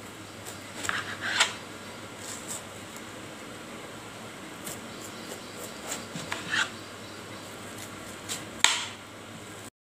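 Knife slicing through a peeled watermelon on a cutting board: scattered short crunches and clicks over a steady low hiss, the loudest near the end.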